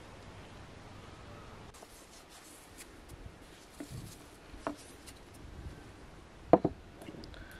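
Quiet hand and kitchen handling sounds: salt sprinkled by the fingers onto chopped herbs in a glass bowl, with faint rubbing and small clicks. A single sharp knock near the end is the loudest sound.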